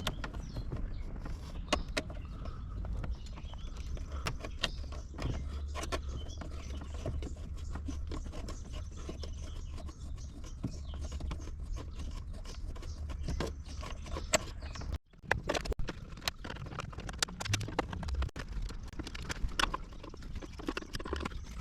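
Screws being removed from a 1978 Mustang's instrument cluster bezel: scattered small clicks, taps and rattles of tool, screws and trim, over a low steady hum that drops away about two-thirds of the way through.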